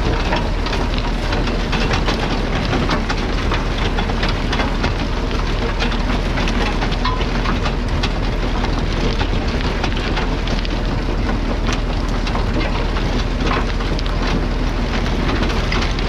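Massey Ferguson 711 potato harvester running in work, a steady dense rattle and clatter of soil, stones and potatoes tumbling over its web and turning picking table, with the Massey Ferguson 35X tractor running underneath.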